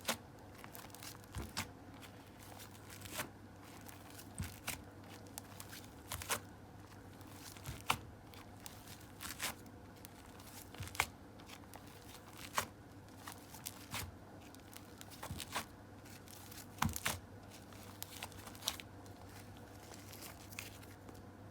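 Hands working clear slime, making short, sharp sticky clicks and pops at irregular intervals, roughly one every second, over a faint steady hum.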